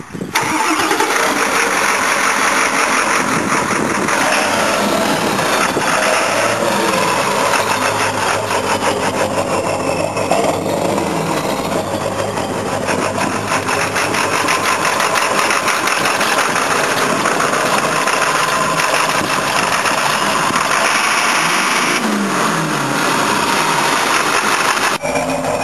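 Ford 7.3L Power Stroke turbo-diesel V8 run hard through straight exhaust stacks, a loud steady diesel clatter that comes in suddenly and holds for over twenty seconds, dipping briefly near the end.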